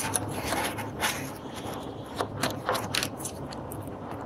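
Cardboard box and plastic toy packaging rubbing and scraping together in short, irregular strokes as the packaged toy is slid out of the box.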